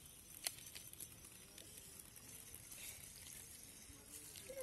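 Very quiet: faint rustling and small clicks of hands handling puja items, with one sharper click about half a second in.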